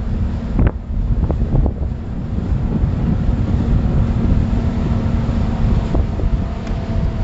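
Wind buffeting the microphone on a moving pontoon boat, over the steady drone of its Yamaha 85 three-cylinder two-stroke outboard running under way. A few short knocks come in the first two seconds.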